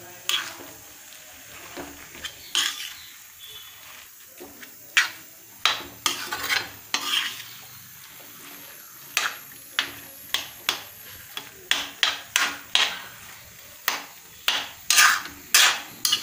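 A spatula stirring grated carrots and khoya in a metal kadhai, scraping and knocking against the pan in quick irregular strokes, more of them from about five seconds in, over a faint sizzle as the carrot halwa cooks.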